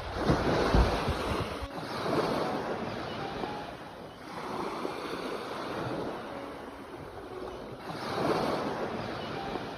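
Sea waves breaking and washing ashore, rising and falling in surges every two to three seconds, the heaviest with a low rumble right at the start.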